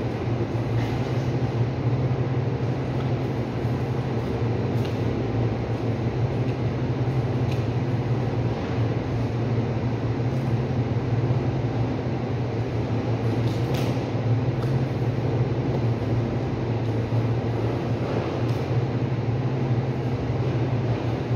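Steady low hum of a ceiling-mounted cold-room cooling unit running, with a few faint ticks now and then.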